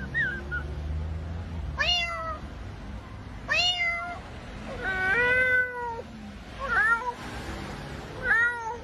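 Five separate meows, a second or more apart, the middle one the longest at about a second.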